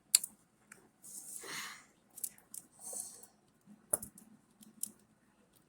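Small tools, such as tweezers, clicking and tapping as they work a soft toy figure, with a couple of short scraping rustles in between. There are scattered sharp clicks, the loudest about four seconds in.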